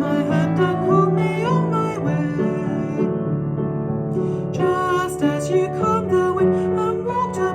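A hymn with singing over a piano and guitar accompaniment.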